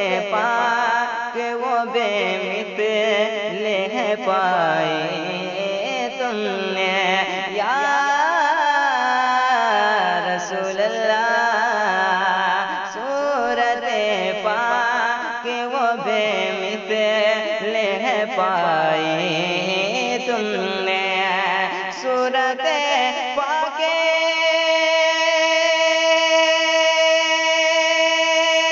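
A man's voice singing a naat melody in long, gliding melismatic lines with no clear words. About 23 seconds in, a steady held tone takes over.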